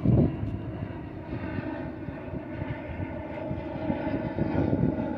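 A steady engine drone, several held tones together over a low rumbling noise, with a brief louder bump right at the start.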